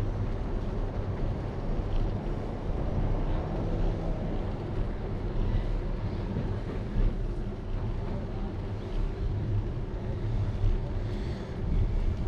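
Wind buffeting the microphone of a GoPro on a moving bicycle: a steady low rumble, mixed with the road noise of the ride.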